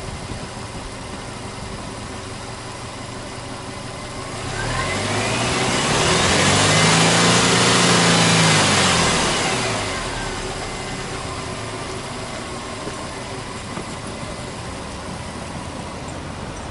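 Subaru Impreza WRX STi (GDB) turbocharged 2.0-litre flat-four (boxer) engine idling, then revved once in neutral about four seconds in: the pitch climbs, holds high for a couple of seconds, and drops back to idle about ten seconds in.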